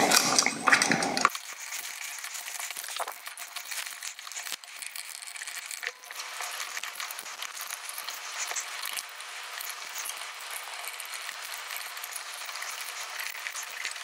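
Faint clicks and light scrapes of a screwdriver and copper wires against the metal terminal screws of a dimmer switch being wired by hand, over a steady hiss.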